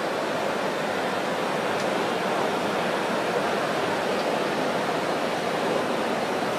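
Steady, even hiss of room noise with no distinct sounds standing out.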